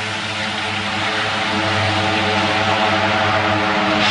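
De Havilland Canada DHC-6 Twin Otter's twin PT6A turboprops at takeoff power: a steady propeller drone over a broad rushing engine noise, growing a little louder toward the end as the plane climbs out close by.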